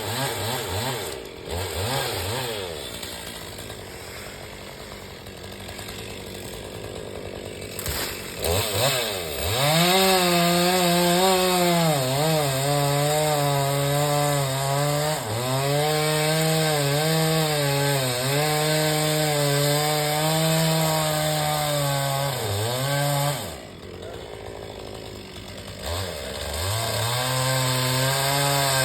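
Chainsaw engine running low at first, then revved to a high, steady pitch about nine seconds in and held there, the pitch dipping now and then. It drops back down a little past two-thirds of the way and revs up again near the end.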